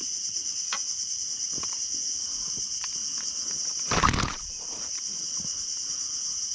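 Steady high-pitched chorus of insects, with a few faint clicks. About four seconds in comes a loud, brief burst of handling noise as a freshly caught barramundi is gripped with a fish lip grip.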